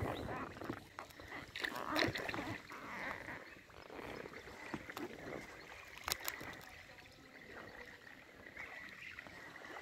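Gentle splashing and lapping of water around a kayak on a calm river, with a few small knocks and clicks.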